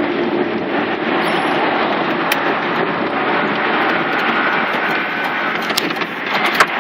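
Inside the cabin of a 1993 Mitsubishi 3000GT VR-4 on the move: its twin-turbo V6 running under road and wind noise. Near the end the sound dips briefly, and a sharp click follows.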